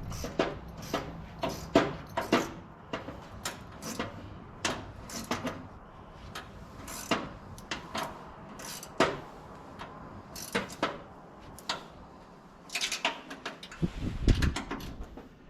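Irregular clicks, taps and clatter of hand tools and small metal hardware being handled during work on the Jeep's top brackets, with a heavier low thump near the end.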